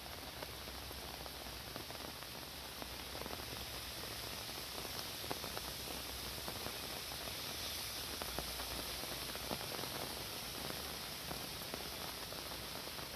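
Steady rain falling, an even hiss dotted with the patter of countless individual drops, growing a little heavier a few seconds in.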